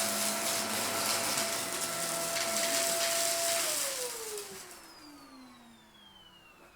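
Vacuum cleaner running steadily, then switched off about three and a half seconds in, its motor whine falling in pitch and fading as it spins down.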